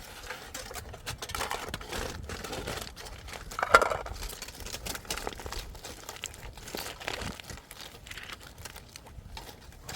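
Irregular crinkling and rustling with many small clicks, as something is handled, and one louder, sharper burst a little under four seconds in.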